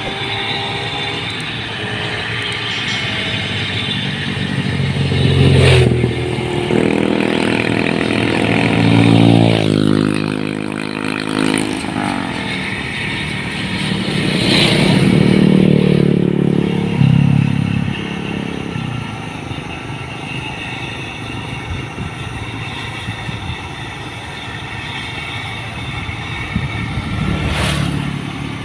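New Holland 1545 combine harvester's turbocharged diesel engine running under load while it cuts and threshes rice, its pitch rising and falling several times, with the threshing gear clattering. Two sharp knocks, one about six seconds in and one near the end.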